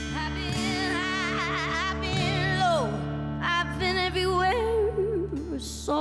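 Woman's voice singing long held notes with wide vibrato, falling in pitch near the end, over a sustained chord from the backing band.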